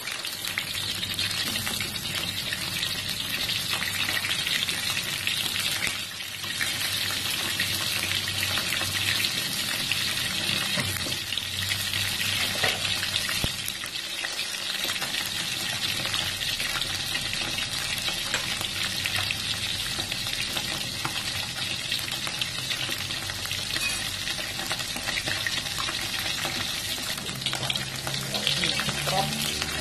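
Small whole fish (ikan cue) frying in hot oil in a wok: a steady sizzle with constant fine crackling.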